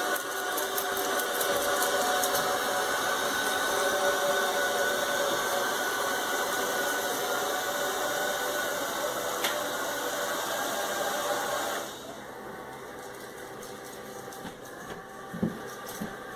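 Shark ION robot vacuum running: a steady motor whine over a hiss of suction and brushes. About twelve seconds in it drops sharply to a fainter hum, with a few light clicks near the end.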